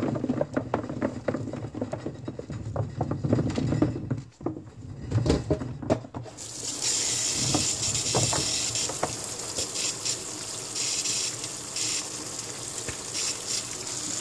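Green plums tumbling out of a plastic colander into a plastic basin with a run of irregular knocks and rustles. About six seconds in, a kitchen tap starts running water onto the plums, a steady hiss, with hands stirring the wet fruit.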